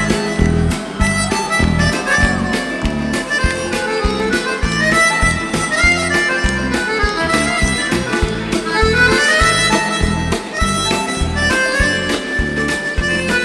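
Instrumental break played live: a bayan (Russian button accordion) carries the melody over a full rock band with a steady drum beat.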